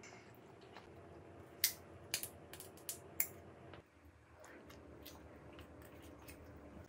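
Close-miked eating sounds: a few sharp clicks and crackles from the mouth and sticky gummy candy being chewed, over a faint steady hum.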